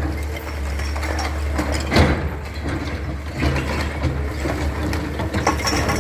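Cat 316 excavator's diesel engine running steadily under load, with irregular metallic clanks and rattles. The sharpest knock comes about two seconds in and another near the end.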